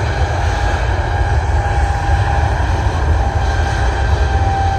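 Jet airliner engines making a steady rumble with a faint, thin whine, while wind buffets the microphone.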